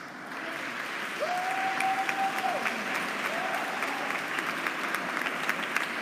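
An audience applauding, the clapping swelling up just after the start and holding steady. Twice a held tone rises above the clapping, the first longer, about a second in, the second about three seconds in.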